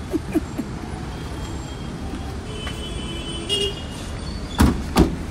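Steady city road traffic rumble with faint car horns in the distance, then two sharp knocks about half a second apart near the end.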